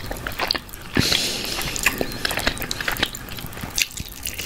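Close-up eating sounds: biting and chewing a sauce-glazed barbecue chicken drumstick, with irregular wet clicks and smacks and a brief louder burst about a second in.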